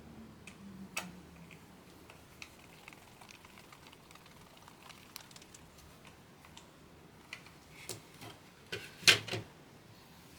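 Scattered light clicks and taps of small keyboard parts being handled during assembly, with a louder cluster of clacks near the end.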